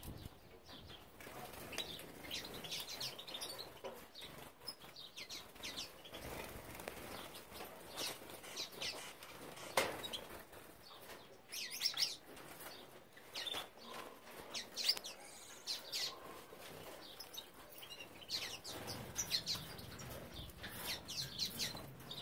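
Gouldian finches giving scattered short, high chirps and calls, with a sharp tap about ten seconds in.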